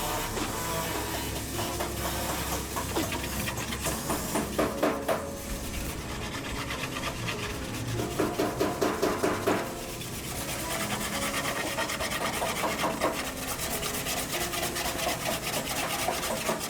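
Abrasive hand work on car bodywork: rapid back-and-forth rubbing strokes in runs with short pauses.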